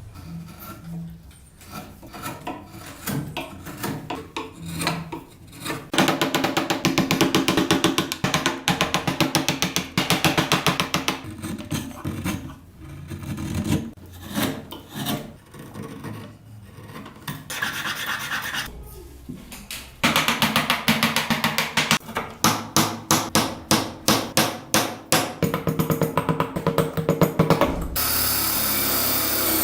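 Wood being shaped by hand with rhythmic abrasive strokes, like filing or sanding a carved block, in runs of quick back-and-forth strokes with short pauses between.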